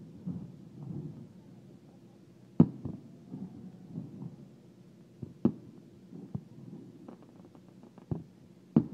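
Aerial firework shells bursting: a handful of separate dull booms every second or two, with a patter of small crackles shortly before the end.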